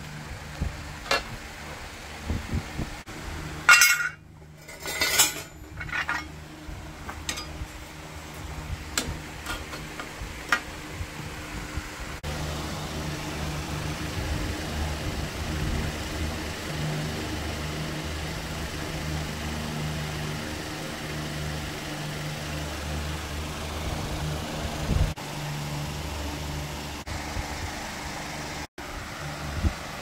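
Metal engine parts and tools being handled, with scattered clinks and knocks. About twelve seconds in, a steady low mechanical hum sets in and continues.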